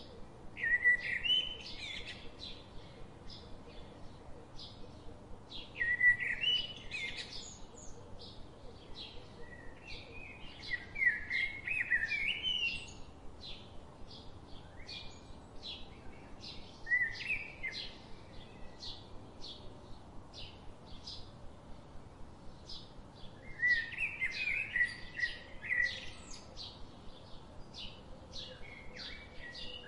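Birds singing: short warbling song phrases every few seconds over a steady run of short chirps, about two a second.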